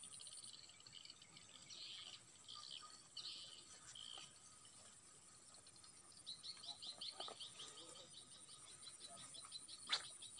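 Faint outdoor wildlife chirping: a few scattered high chirps, then about six seconds in a fast run of short repeated high chirps lasting a few seconds. A single sharp click comes near the end.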